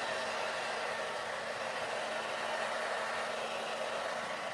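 Steady rushing noise of a small electric blower motor, with a faint steady hum under it.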